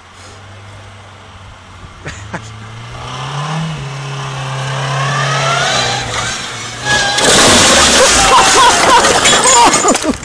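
Volkswagen Golf engine revving up and held high, then about seven seconds in its tyres spin and squeal on the paving, loud.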